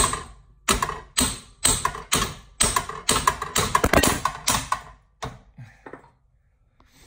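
Hammer blows on the front steering linkage of a Club Car golf cart, knocking the connecting rod end loose: about a dozen sharp strikes, roughly two a second and quickening, that stop about five seconds in.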